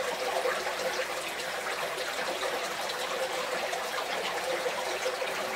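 Shallow spring water flowing steadily over stones and pebbles at the river's source spring, with a continuous trickling and gurgling.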